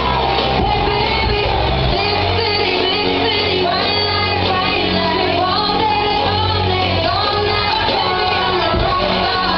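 A recorded pop-rock song with a lead vocal, playing loud and steady.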